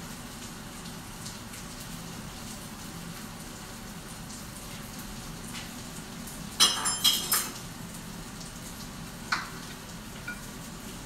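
Potatoes frying in a pan on the hob, a steady faint sizzle with light crackles, with the heat turned up to crisp them. About two-thirds through comes a quick run of loud metallic clatters of kitchenware, and a single clink follows a couple of seconds later.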